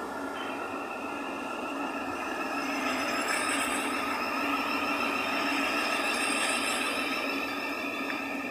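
Thameslink Class 700 electric multiple unit moving through the platform: its electric traction equipment whines in a few steady tones over the noise of the wheels on the rails, growing a little louder through the middle.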